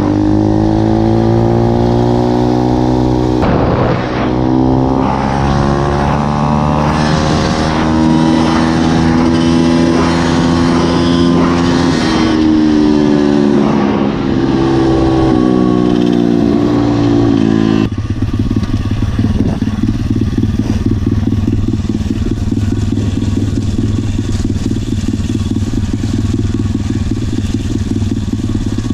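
Dirt bike engine heard from on board, its pitch repeatedly climbing and dropping as it is revved up and shifted. About eighteen seconds in it changes abruptly to a lower, rougher, steadier engine note.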